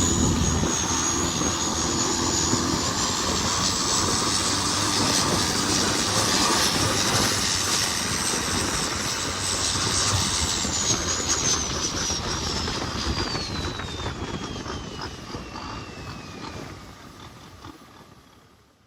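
Racing longtail boat engine running hard at high revs, with a high whine that falls steadily in pitch over the second half. The sound fades out near the end.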